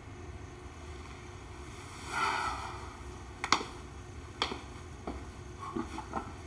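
A man's footsteps as he walks into a room: a brief rustle about two seconds in, then a few sharp, irregular steps, the loudest about halfway through.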